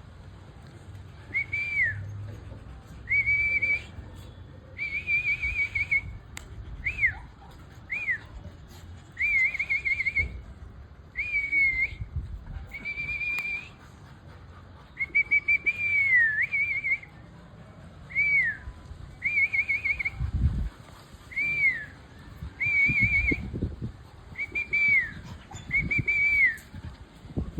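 Rottweiler puppy whining: a string of high, thin whimpers, each under a second, some rising and falling and some wavering, repeated every second or two. A few dull thumps come near the end.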